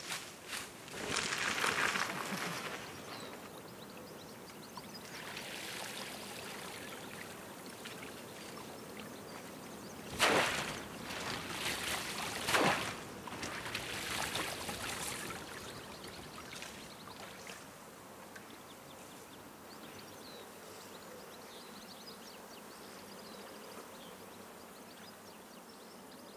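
River water splashing and streaming off bundles of cut bulrushes as they are handled and lifted from the water, with two louder splashes about ten and twelve seconds in. For the last several seconds only a fainter, even wash remains.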